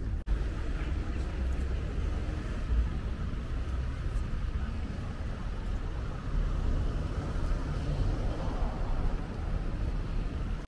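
Outdoor street ambience: a steady low rumble of road traffic, with a brief dropout just after the start.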